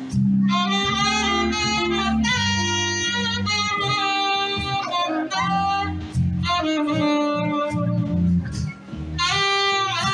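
Live saxophone-led band playing: the saxophone carries the melody in held, phrased notes over electric guitar, bass and drums, with a short gap between phrases near the end.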